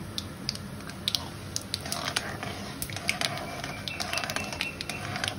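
Mustard seeds and curry leaves spluttering and crackling in hot oil in a steel kadai, a scatter of sharp irregular pops. The mustard popping is the sign that the tempering (tadka) is done.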